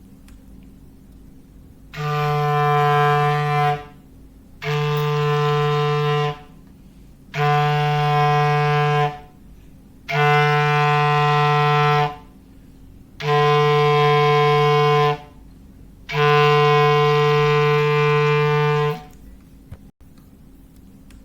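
Foghorn sound effect: a low, steady horn tone sounded six times, each blast about two seconds long with short gaps between, the last one the longest.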